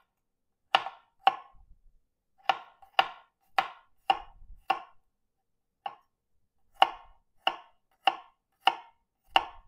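Santoku knife slicing garlic cloves thin, the blade knocking down onto the cutting board in a steady series of sharp chops, about two a second, with a short pause a little past the middle.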